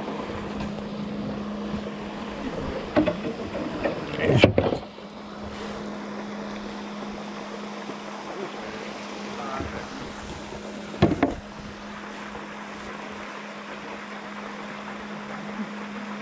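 Steady low hum with wind on the microphone, broken by two loud short noises, about four seconds in and about eleven seconds in.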